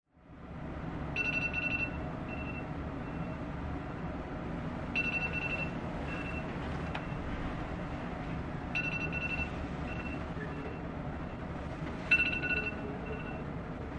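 Phone alarm tone ringing: a short, high electronic chime phrase sounding four times, about every four seconds, each one trailing off in fainter echoes, over steady low background noise.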